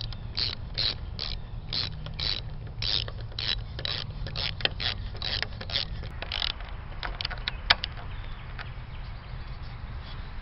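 Hand ratchet wrench tightening a bolt through a wooden beam, ratcheting in quick repeated strokes about two to three a second. About six seconds in the strokes turn into a few sharper single clicks, which stop near the end.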